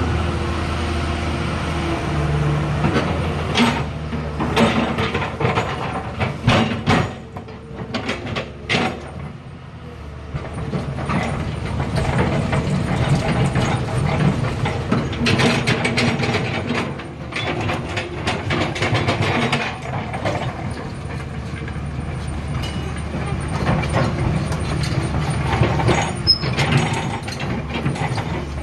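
Komatsu PC200-7 tracked excavator's six-cylinder diesel engine running under work, with a steady low drone. A string of knocks and clicks comes a few seconds in. The machine then works harder and louder from about ten seconds on.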